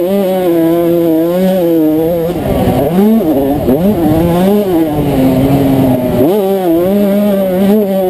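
1992 Honda CR125's single-cylinder 125cc two-stroke engine under race throttle, heard from on the bike. Its pitch holds high, drops off about two and a half seconds in and again from about four to six seconds in, then climbs back up and holds.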